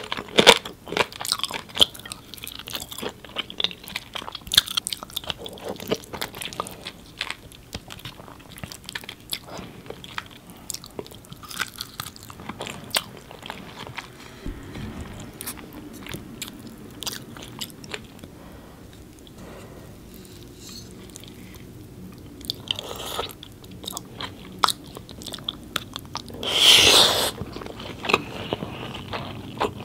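Close-miked eating: a person biting and chewing food, with many small sharp clicky mouth sounds, busier in the first few seconds. Near the end comes one louder, longer mouth sound.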